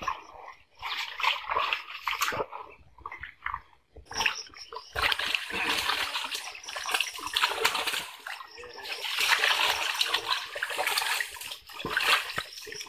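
Pond water splashing and sloshing as a seine net is hauled in by hand. From about five seconds in, the splashing turns dense and continuous as the fish thrash in the tightened net.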